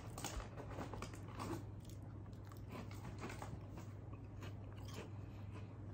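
A person chewing crunchy snack crackers with the mouth closed: soft, irregular crunches, thickest in the first couple of seconds and sparser after, over a steady low hum.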